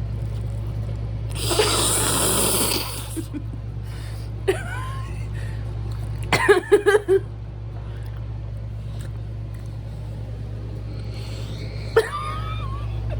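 A person eating a runny-yolk egg: a loud slurp about a second and a half in, then short mouth and chewing noises, over a steady low hum.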